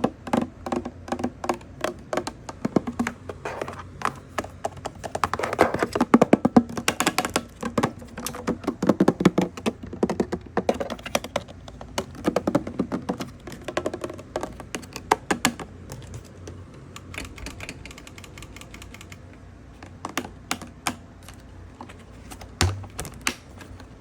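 Spray trigger on the handle of a Bissell Revolution HydroSteam carpet washer squeezed and released over and over: runs of quick plastic clicks, busiest in the middle and sparser later on.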